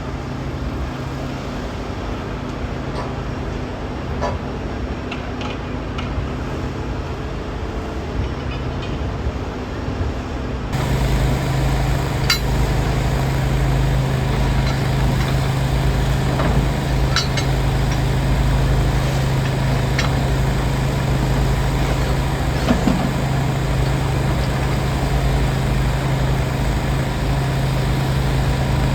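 Engine of heavy work equipment running steadily, with a few sharp clicks; the sound steps up louder about eleven seconds in.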